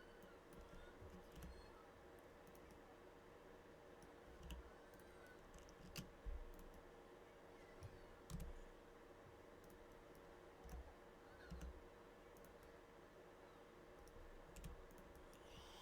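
Scattered faint clicks of a computer mouse and keyboard, with a few low thumps, over a faint steady hum.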